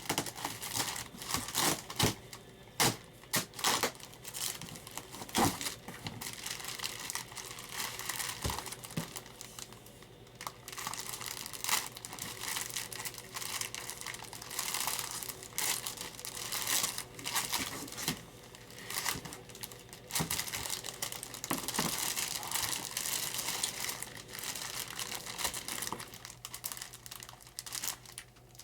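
Packaging being unwrapped by hand from a model-plane part, crinkling and tearing in irregular rustles and crackles.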